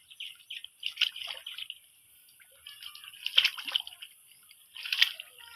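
Shallow water splashing and sloshing as hands grope through it for fish, in three separate splashes about a second and a half apart, with lighter trickling between.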